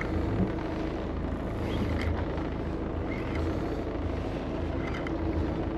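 Boat engine running steadily: a low hum under an even wash of noise.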